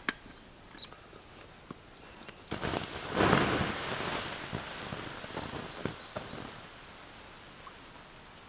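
Water poured onto hot campfire ashes and embers, hissing as steam and ash billow up: the fire is being doused. The hiss starts suddenly about two and a half seconds in, is loudest for about a second, then fades slowly, with a few crackles.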